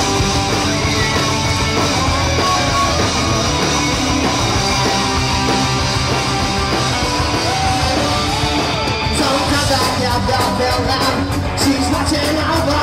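Live rock band playing at full volume through a PA, drums, bass and guitars, heard from within the crowd. A singer's voice comes in over the band in the second half.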